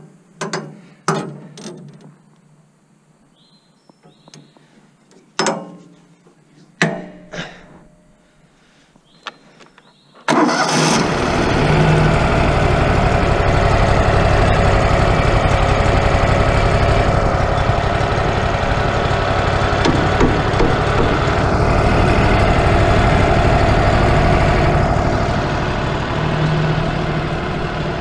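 Several sharp knocks and clicks, then about ten seconds in the engine of a Wood-Mizer portable band sawmill starts suddenly and runs loud and steady.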